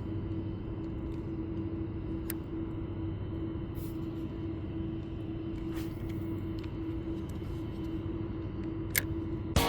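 Steady vehicle rumble with a constant engine drone, as from a car driving, with a few faint ticks.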